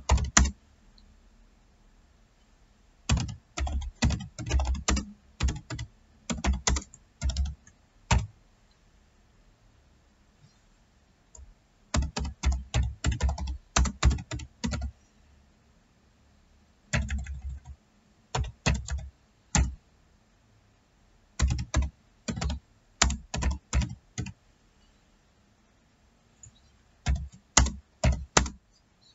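Typing on a computer keyboard: runs of quick keystrokes, with pauses of a few seconds between the runs.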